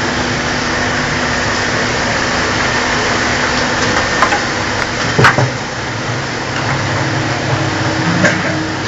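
Commercial chips-and-wafers frying machine running: a steady, loud hiss with a low hum, broken by a few sharp knocks, the loudest about five seconds in.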